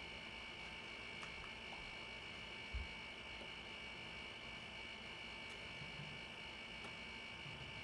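Faint room tone: a steady electrical hum and hiss with a high-pitched whine, and one soft low thump about three seconds in.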